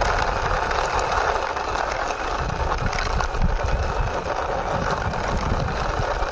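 Toy power backhoe pushed along by hand, its wheels making a steady rolling noise with small clicks and rattles.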